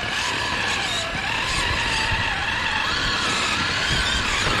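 Scale RC rock crawler's electric motor and geared drivetrain whining as it crawls over rock, the whine's pitch wandering up and down with the throttle.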